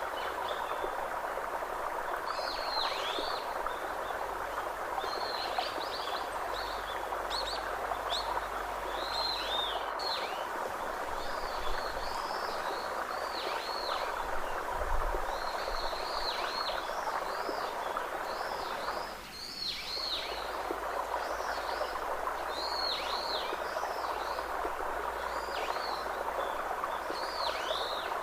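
Birds chirping over and over, short calls that sweep down in pitch, about one a second, over a steady rushing background noise that dips briefly about two-thirds of the way through.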